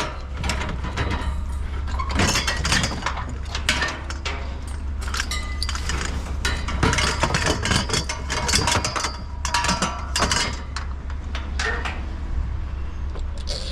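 Scrap metal pieces clanking and rattling against each other as they are moved and stood up in a loaded pickup bed, with many irregular knocks over a steady low rumble.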